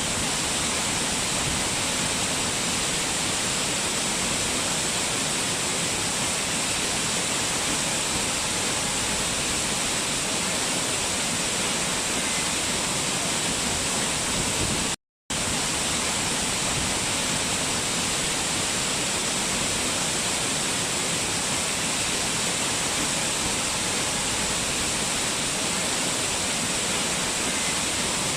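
Waterfall: a steady rush of falling water, broken by a brief silent gap about halfway through.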